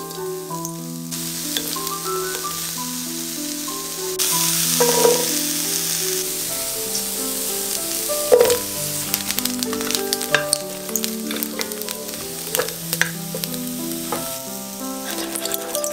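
Tomatillo, jalapeño, onion and garlic pieces sizzling in a hot metal skillet, with scattered knocks as pieces drop into the pan. The sizzle grows louder about four seconds in, over background piano music.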